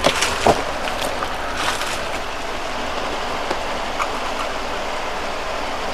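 Steady hiss of background noise with a few faint clicks and taps.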